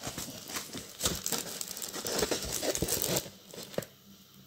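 Clear plastic wrapping crinkling and rustling as a rolled diamond painting canvas in its plastic sleeve is handled, with small clicks and taps. It dies down about three seconds in.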